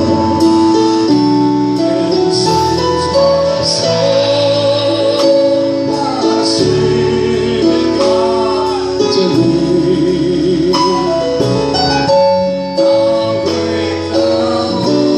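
Hymn music: singing in long held notes with vibrato over a keyboard accompaniment.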